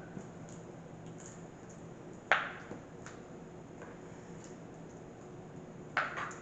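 Two sharp snaps about three and a half seconds apart, with faint ticks between, as a silicone pop-it toy is worked and the hardened hot glue is peeled out of it.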